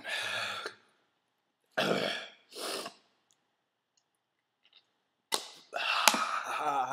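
A man's breathy huffs and throat noises in several short bursts, the last and longest ending in a drawn-out voiced groan. His mouth is burning from superhot chili peppers.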